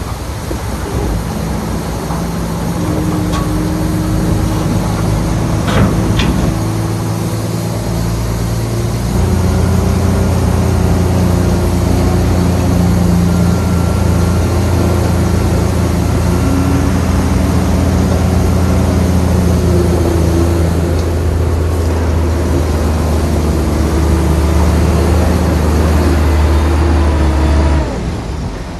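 A bulldozer's diesel engine running under load with a steady low drone. The drone grows louder about nine seconds in and drops off near the end. A single sharp clank comes about six seconds in.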